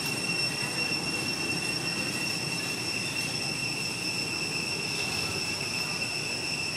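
Steady high-pitched drone of cicadas in the forest canopy, holding one unchanging pitch, over a low background rumble.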